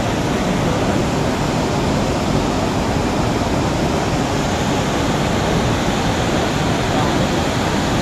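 Bharachukki Falls, a wide waterfall on the Kaveri river in heavy flow, rushing loudly with a steady, even noise that is heaviest in the low range.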